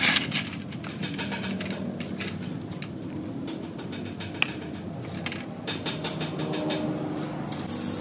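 Light clicks and clinks of metal as a dismantled refrigerator compressor's crankcase is handled and turned over a metal tray, with one sharper click about four and a half seconds in, over a steady low background hum.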